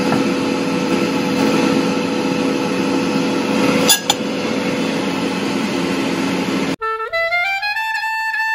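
Air fryer running with a steady fan noise and hum while a batch cooks, with one click about four seconds in. Near the end the sound cuts off abruptly and music with a rising run of notes starts.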